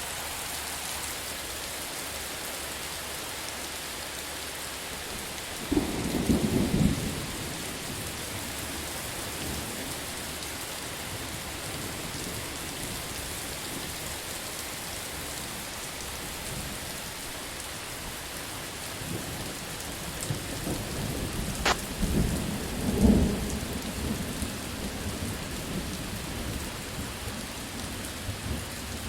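Steady rain with thunder. A sudden thunderclap comes about six seconds in, and a longer rolling rumble builds in the second half, peaking about three-quarters of the way through.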